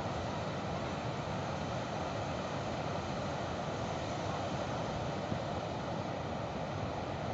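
Steady, even rushing noise of ocean surf breaking on a beach.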